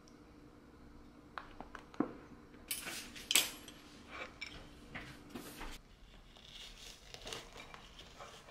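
Clinks and scraping of cutlery and crockery, loudest a little before halfway, then a knife and fork sawing through a slice of toast on a ceramic plate in softer scrapes near the end.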